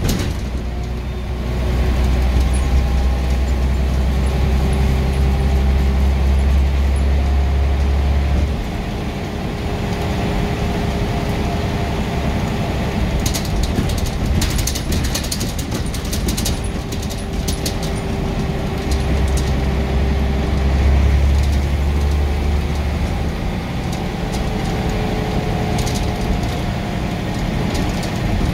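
Scania N94UB single-decker bus on the move: a heavy engine drone as it pulls hard for the first eight seconds or so and again about twenty seconds in, easing off in between. A steady whine runs through it, with bursts of rattles and clicks about halfway and again near the end.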